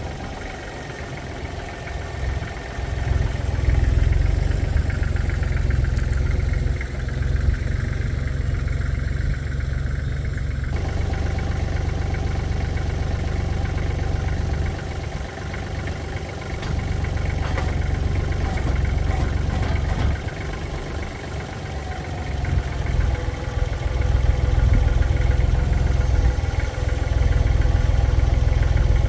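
Engine running steadily with a deep rumble, growing louder a few seconds in and again near the end.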